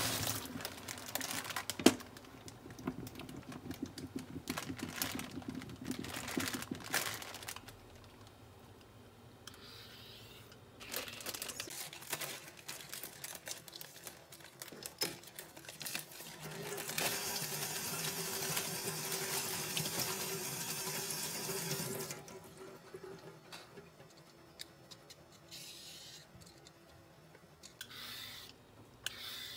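Kitchen prep at a stainless steel sink: a cucumber rubbed and rinsed under the tap in quick rhythmic strokes, clicks and clatter of handling on a plastic cutting board, and near the end a vegetable peeler scraping strips off a carrot in short strokes.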